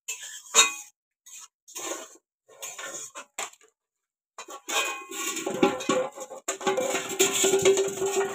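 Metal spatula scraping and clinking against a metal kadai as leafy greens are stirred: a few separate strokes at first, then from about four and a half seconds in a denser, continuous stirring.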